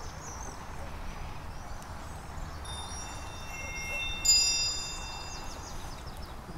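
Wind chimes ringing, a few metal tones struck about three seconds in and again, louder, about a second later, then fading out, with small birds chirping.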